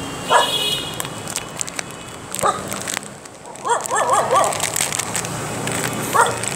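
A dog whining in short, high, wavering cries: one about half a second in, another at two and a half seconds, a longer wavering run of cries around four seconds, and another starting near the end. Clicks and rustles run underneath.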